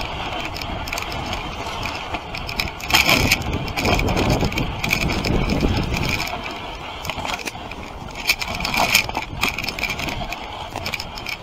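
Dog sled runners sliding and scraping over snow, the wooden sled frame knocking and rattling as it goes. The scraping grows louder for a few seconds from about three seconds in.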